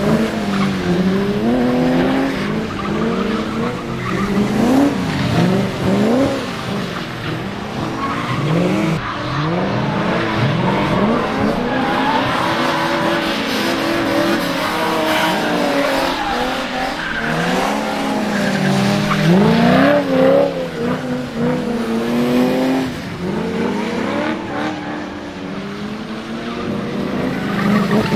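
BMW 3 Series drift cars' engines revving up and down over and over as the cars slide sideways, with tyres skidding on the wet asphalt.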